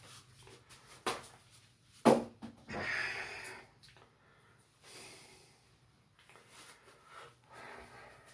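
A man coughing sharply and pushing out breathy, wheezing exhales as a deliberate voice exercise. Two short sharp coughs come about one and two seconds in, the second the loudest, followed by a hissing exhale and fainter breaths.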